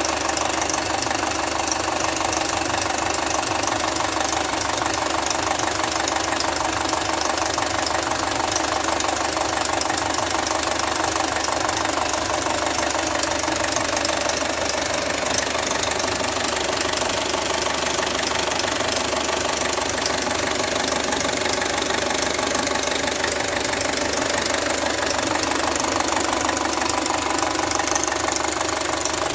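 Audi A4 B6 2.0 FSI (AWA) four-cylinder engine idling with a steady rattling, knocking noise from the cylinder head: the sign of a stretched timing chain and a worn camshaft phaser.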